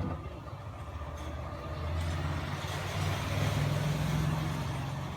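Low engine drone of a motor vehicle, swelling louder in the middle and easing off near the end.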